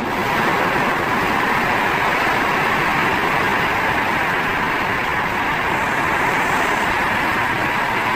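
Olive mill machinery running steadily: a loud, even mechanical noise.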